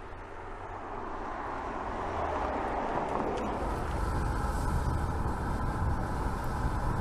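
Audi TT on the move, its engine and road noise growing louder over the first three seconds and then holding steady.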